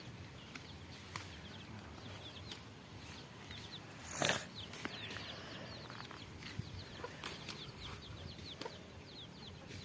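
Birds chirping in quick, short, repeated falling notes, with scattered light clicks and one brief louder rustle about four seconds in.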